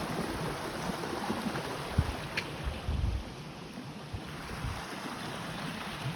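Steady rushing of a small waterfall, with a gust of wind buffeting the microphone about halfway through.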